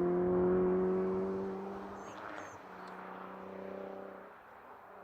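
A car engine pulling hard up the hill under acceleration. Its note rises slowly, then steadies and fades into the distance as the car drives away.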